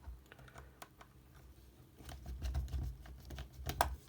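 Small screws being backed out of a plastic headphone housing with a small screwdriver: scattered light clicks and taps of the driver and plastic parts, with a low handling rumble in the middle and the sharpest click near the end.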